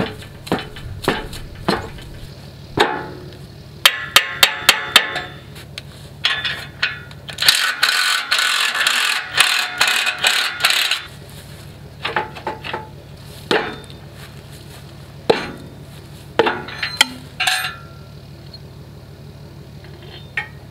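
Metal taps and clanks on a steel disc harrow frame while a bolt is worked into a broken gang mount: a quick run of about seven sharp strikes about four seconds in, a rasping scrape from about 7 to 11 seconds, and scattered single knocks.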